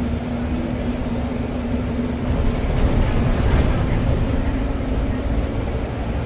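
Bus engine and road noise heard from inside the moving bus's cabin: a low rumble with a steady hum that shifts about two seconds in, and a louder, noisier stretch around the middle.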